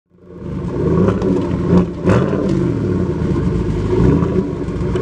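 Chevy Silverado V8 running through its exhaust and being revved, rising and falling in pitch, with the loudest blips about two seconds in.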